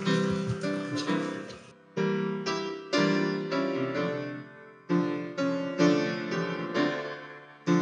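Piano playing slow sustained chords, a new chord struck about every second and left to ring down.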